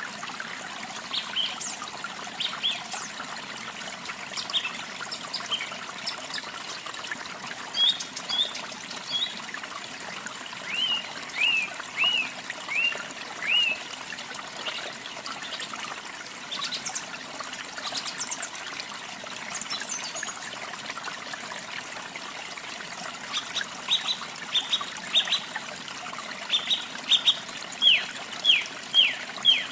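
Water trickling steadily under the short, high chirps of small songbirds. A run of about five falling chirps comes a little before halfway, and a faster series of chirps near the end.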